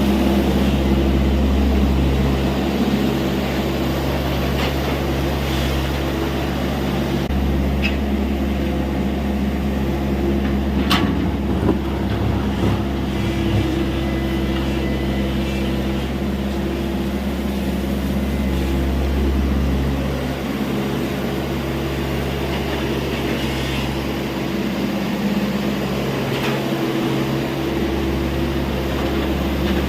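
TATA Hitachi EX70 hydraulic excavator's diesel engine running steadily while digging, its low drone shifting a little as the load changes, with one brief knock about eleven seconds in.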